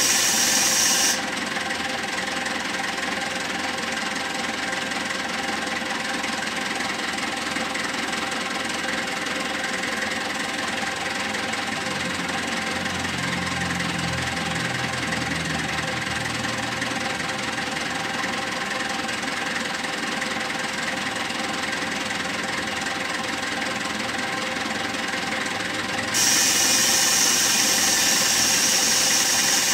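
SYZG wheel loader's diesel engine running steadily, freshly serviced. Near the end a loud, steady high hiss joins in for a few seconds.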